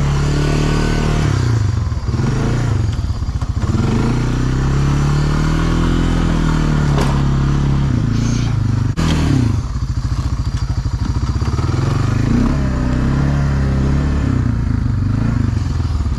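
1999 Honda FourTrax 300 ATV's single-cylinder four-stroke engine running as it is driven, its pitch rising and falling several times as the throttle is worked. A couple of sharp knocks come about midway.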